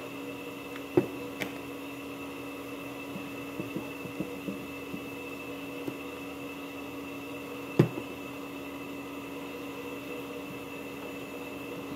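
Small clicks and two sharper knocks of a small heatsink being handled and worked loose from an amplifier circuit board, over a steady electrical hum. The knocks come about a second in and again about two-thirds of the way through.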